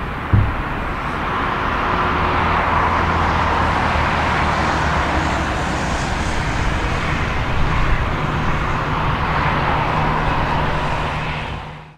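Jet airliner's engines running with a steady roar and low hum as the plane rolls out along the runway after landing, with a short thump about half a second in. The sound swells slightly after a couple of seconds and fades out at the end.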